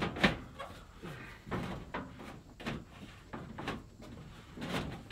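A trim piece being worked by hand down into a J-channel: a string of irregular knocks and taps, the sharpest just after the start.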